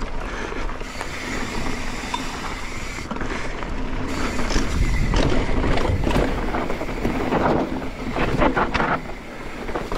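Mountain bike rolling fast down a dry, sandy dirt trail: tyres running over dirt and stones and the bike rattling over bumps, with wind rushing over the microphone. It gets louder about halfway through, with a burst of rattling near the end.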